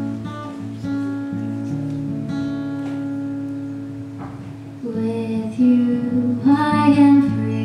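A guitar plays the song's intro, strummed and picked in steady chords. About five seconds in, a girl's voice starts singing over it, louder than the guitar.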